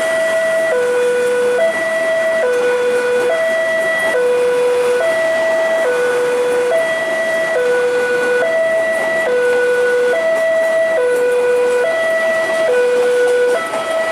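Railway level-crossing warning alarm sounding a steady two-tone hi-lo pattern, switching pitch about every 0.8 s, the signal that a train is approaching and the crossing is closing.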